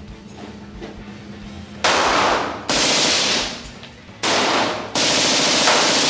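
Gunfire on an indoor shooting range: four loud shots in two close pairs, starting about two seconds in, each ringing on for most of a second off the range walls.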